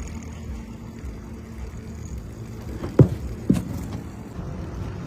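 An engine running steadily at idle, with two sharp knocks about three seconds in, half a second apart.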